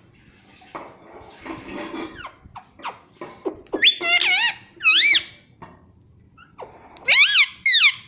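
Indian ringneck parakeet vocalizing: soft scratchy chatter first, then loud, high, squeaky calls that rise and fall in pitch, one about four seconds in, another a second later, and two close together near the end.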